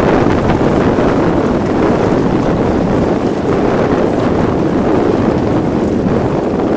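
Steady wind noise on the microphone, with water rushing along the hulls of a Reynolds 21 catamaran under sail.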